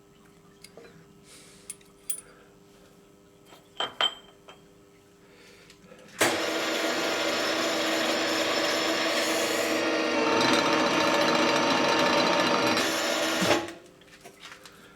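A few light metal clicks, then a power tool in a machine shop runs loudly for about seven seconds, starting and stopping abruptly.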